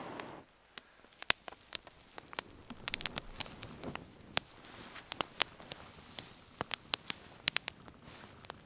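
Dry-grass tinder bundle burning on the ground, crackling with many sharp, irregular snaps as it flares. A breathy blowing sound fades out in the first half second.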